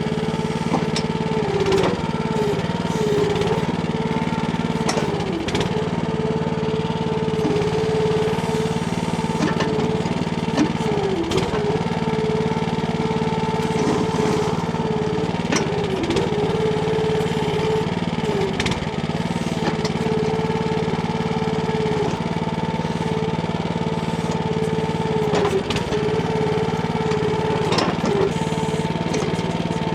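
Small petrol engine of a Timco ATV-570R towable backhoe running steadily at working speed, its hum dipping briefly every few seconds as the hydraulics take load, with scattered knocks from the bucket working the ground.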